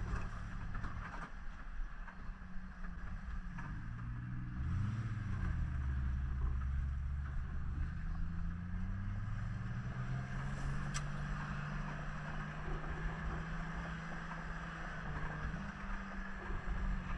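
A low engine drone that slowly shifts in pitch, over wind and rustle on the microphone, with a single sharp click about eleven seconds in.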